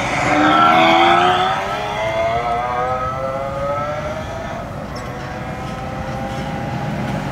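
A recorded Lamborghini engine sound played through an electric motorcycle's add-on speaker: the engine note climbs steadily in pitch like a long hard acceleration. It is loudest about a second in, then fades.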